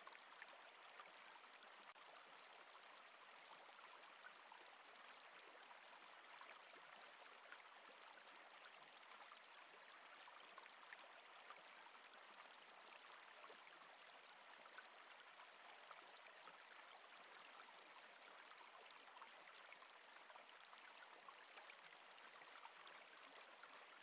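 Faint, steady sound of a stream of water running over rocks: an even soft rush with small scattered splashes.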